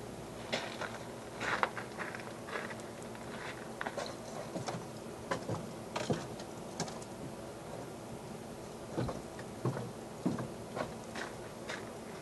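Irregular soft clicks and scratches from a western fence lizard moving and feeding on termites on dry weathered wood, over a steady low hum.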